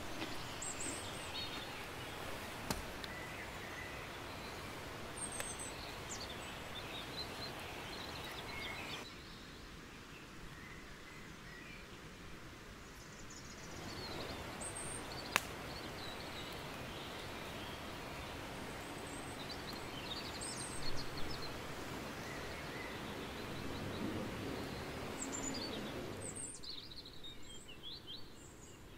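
Woodland ambience: a steady background rush with small birds giving short, high chirps now and then. There is a single sharp click about halfway through, and the background falls away briefly twice.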